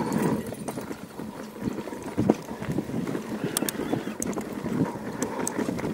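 E-mountain bike rolling slowly over a rocky, grassy trail: tyres crunching on stones and the bike rattling, with a sharper knock a little past two seconds in. Wind rushes on the microphone.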